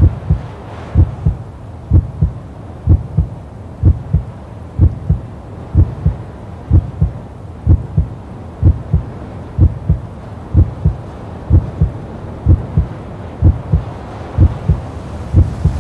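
A low, steady double thump repeating about once a second, in a heartbeat-like rhythm.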